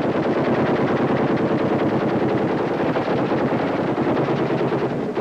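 Automatic gunfire in a long, unbroken stretch of rapid shots.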